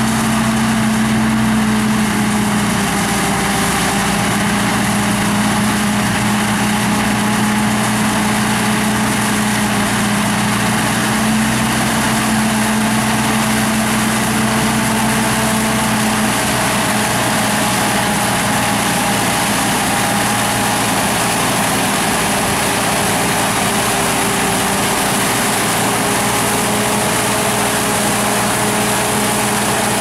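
Sakpattana KM AMT corn combine harvester running steadily while harvesting: an even engine drone with a constant hum and a faint whine that wavers slightly in pitch.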